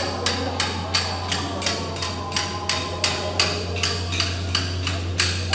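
Hammer blows on metal repeating at about three a second in an even rhythm, over a steady low hum.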